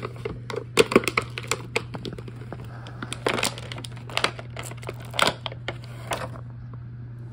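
Plastic and cardboard toy packaging crinkling, with sharp clicks and cracks as small plastic figures are handled and pushed out of their box; the handling stops near the end. A steady low hum runs underneath.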